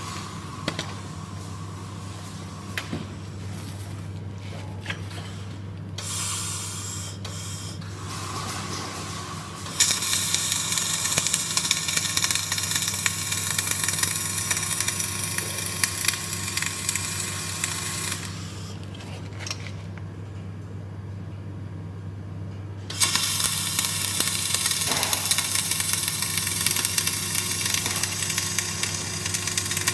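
Flux-core arc welding: the arc crackles and sizzles in two runs, one about eight seconds long starting a third of the way in and a second of about six seconds near the end, over a steady low hum.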